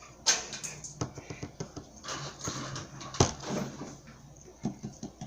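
Slime being kneaded and stretched by hand: wet squishing with many small clicks and crackles and two sharper pops, the slime softened with hand cream.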